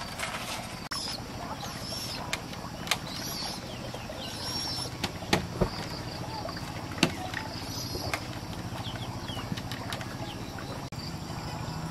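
Birds chirping over a steady low hum, broken by a few sharp knocks, two close together about five seconds in and another about two seconds later.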